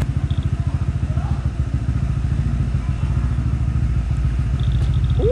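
Motorcycle engine running at low speed with an even pulsing beat, heard from the rider's seat. Right at the end a short tone slides down in pitch.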